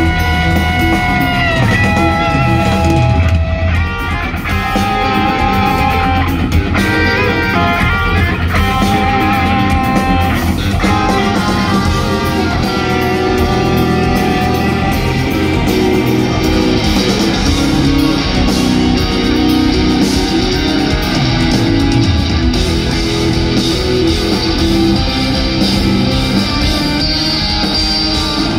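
Live instrumental progressive metal from two electric guitars and a drum kit, loud and close to the stage. Held lead notes with vibrato and bends carry the first ten seconds or so, then the playing thickens into dense riffing under the drums.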